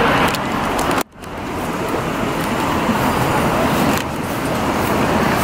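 City street traffic noise: a steady wash of passing cars. It cuts out suddenly about a second in and fades back up within about half a second.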